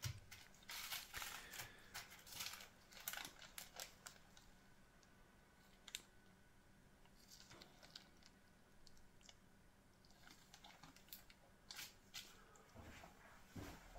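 Faint crinkling and rustling of a small plastic zip-lock bag handled in gloved hands, in short spells that bunch up in the first few seconds and again near the end, with a sharper click about six seconds in.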